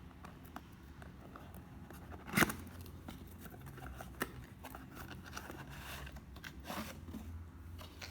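A product box being opened by hand: scattered small clicks and crinkles of cardboard and plastic packaging, with a sharper knock about two and a half seconds in and another near the end.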